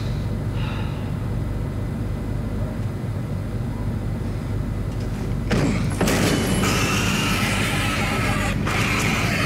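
TV episode soundtrack: a steady low drone, then about halfway through a sudden loud crash as a wooden crate is knocked over and broken open, followed by ongoing loud clatter and scraping.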